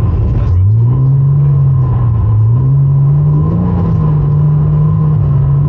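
Porsche Cayman engine revving under throttle: its pitch climbs about half a second in, dips briefly near two seconds, then climbs again and holds high.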